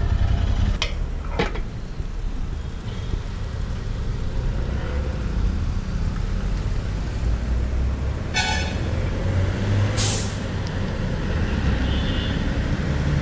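A steady low rumble of vehicle engines, broken by two sharp clicks about a second in, a brief high-pitched squeal about eight and a half seconds in, and a short sharp hiss of air about ten seconds in.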